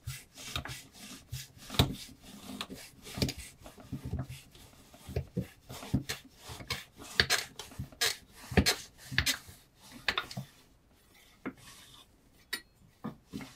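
A kitchen knife's blade cutting test material in a series of short scraping strokes, roughly one or two a second. They stop about ten seconds in, and a few fainter clicks follow.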